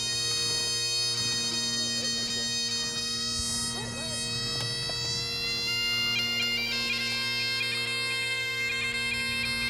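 Background music: a melody played over a steady, unbroken drone.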